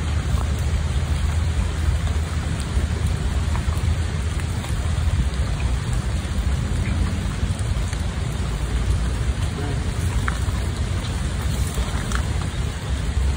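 Steady rushing noise of fast-flowing river water, heavy in the low end, with a few faint ticks.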